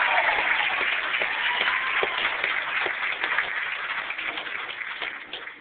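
A crowd applauding, the many hand claps running together and dying away near the end.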